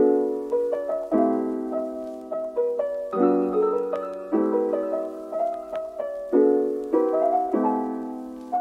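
Background music: solo piano playing slow, gentle chords with a simple melody, each chord struck and left to fade.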